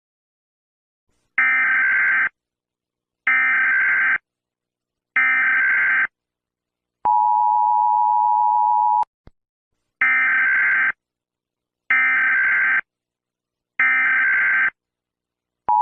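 Emergency Alert System tones: three one-second bursts of screechy SAME digital header data about two seconds apart, then the two-tone attention signal held steady for about two seconds, a brief click, and three more identical data bursts.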